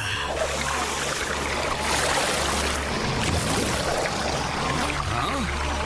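Cartoon soundtrack: background music holding low sustained notes under a steady rushing-water sound effect.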